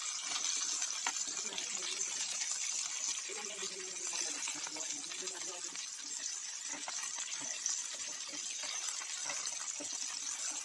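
Boneless chicken pieces sizzling steadily in butter in a frying pan over a high gas flame. Light scrapes and ticks of a metal spoon come through as the pieces are turned over.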